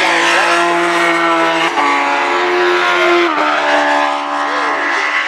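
Race car engine accelerating hard through the gears: its pitch climbs, drops with an upshift about a second and a half in, climbs again, and drops with another upshift a little past three seconds.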